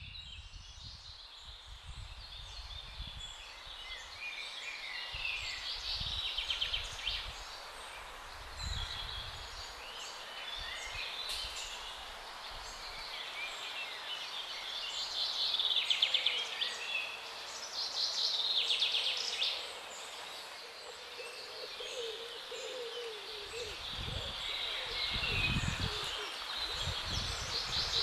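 Several songbirds singing and chirping in a busy chorus of short calls and trills, over a steady outdoor hiss, with irregular low rumbles of wind on the microphone.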